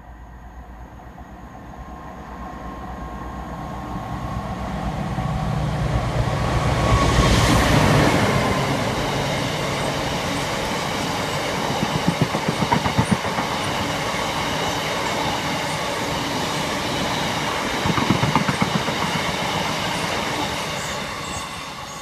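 Locomotive-hauled freight train of tank wagons passing. The locomotive's engine grows louder as it approaches and goes by about 7 to 8 seconds in. The wagons' wheels then keep up a steady rumble, with bursts of clickety-clack over rail joints around 12 and 18 seconds in.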